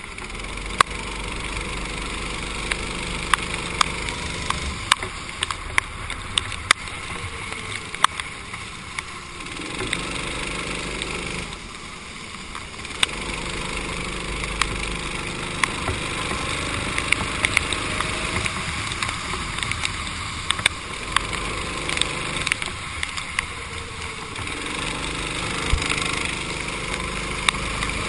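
Kart engine running from the driver's seat, its pitch rising under throttle and falling back when lifting for corners, with a brief drop about twelve seconds in. Under it is a hiss of water spray from the wet track, and many sharp ticks are scattered throughout.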